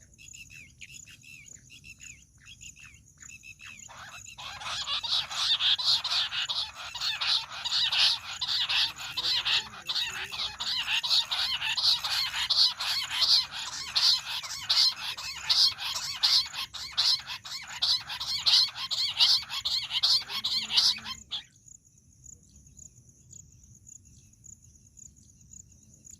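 Bush quail calling: a loud, rapid chattering series of repeated notes that begins about four seconds in, runs for some seventeen seconds and cuts off suddenly. Faint chirps come before it, and a steady high cricket trill is heard before and after.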